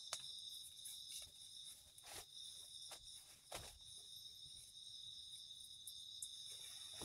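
Faint, steady high-pitched chorus of night insects in the forest, with a few short soft rustles of cloth being handled, the clearest about halfway through.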